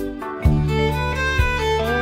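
Instrumental background music: a melody over sustained low notes, with a low accent about once a second.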